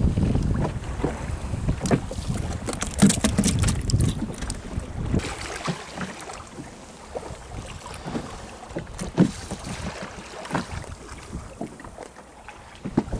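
Wind rumbling on the microphone aboard a small open boat at sea, strongest in the first few seconds and then easing, with scattered knocks and taps throughout.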